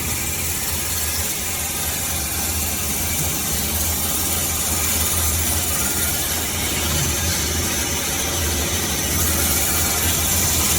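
Band saw cutting machine running with a steady mechanical hum: a constant low drone under an even hiss.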